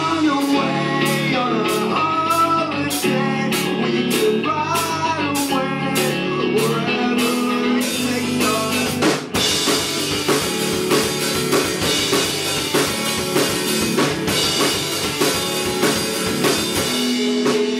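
Live rock band playing: drum kit and guitar, with the drummer singing a melody over the beat. About nine seconds in the drums break for a moment and come back with heavier cymbals.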